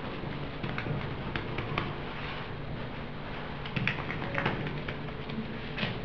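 Fingertips patting and pressing a round of dough, greased with melted butter and oil, flat against a granite countertop: light, irregular taps and soft slaps over a steady low hum.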